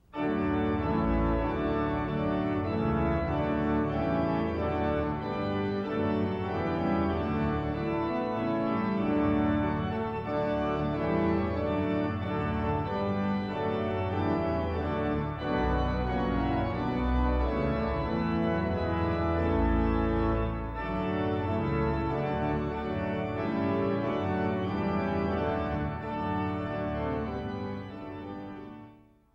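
Organ music: held chords over a deep bass line, fading out near the end.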